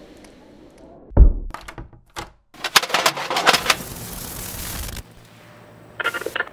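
A heavy thunk and a few sharp clicks, then about two seconds of loud hissing videotape static with crackle that cuts off suddenly, and a short burst of static near the end.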